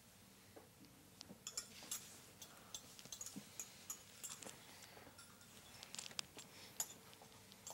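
Faint, irregular light clicks and taps, as of small objects being handled.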